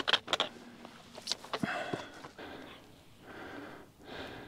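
Heavy breathing of a hiker working hard up a steep rocky climb, deep puffs about once a second. A few sharp clicks come in the first second and a half.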